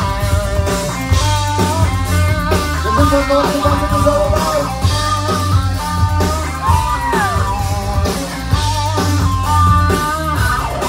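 Loud live band music: electric guitar, heavy bass and a steady drum beat, with a lead melody line over them.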